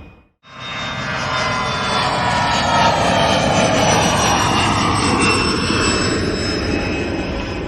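Jet airplane flying past, starting after a brief silent break about half a second in. Its engine noise builds over the first few seconds, and a whine glides down in pitch as it passes, then the noise eases slightly.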